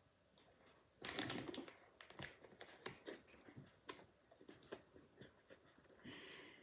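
A child chewing a crunchy snack close to the microphone: irregular crunching clicks and crackles, loudest in a short burst about a second in.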